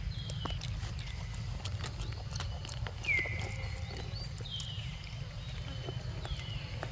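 Baby monkey giving short, high squeaks that fall in pitch, about five in all, a second or two apart. Scattered light clicks and a low steady rumble sit underneath.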